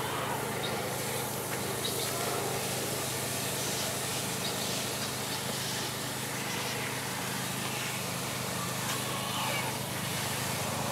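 Water from a garden hose spray nozzle pouring into the soil of a planter's top pot. It comes on abruptly at the start as a steady hiss. Underneath runs a steady low engine drone.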